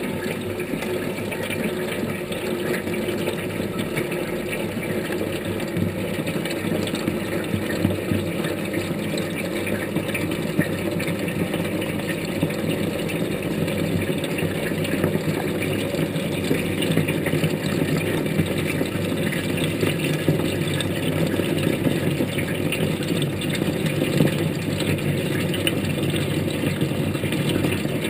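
Washing machine running its wash cycle, heard from inside the drum: a steady churning of motor and water that grows slightly louder.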